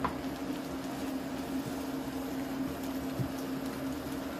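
Steady electrical hum of a portable induction hob heating a pan of simmering sauce, with one click near the start.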